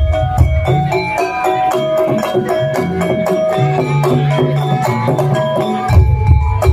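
Banyumasan gamelan music: keyed instruments ring out a fast melody over drumming. The low drum strokes drop out about a second in, a low held note sounds in the gap, and the drums come back in loudly near the end.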